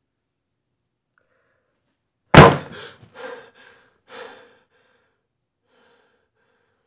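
A sudden loud bang, like a heavy slam or thud, about two seconds in, followed by a few short, sharp breaths from a startled man.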